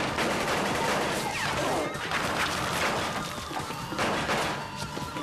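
Gunfight in a film soundtrack: a rapid series of gunshots, with pistols and rifles firing back and forth among barrels in a storeroom.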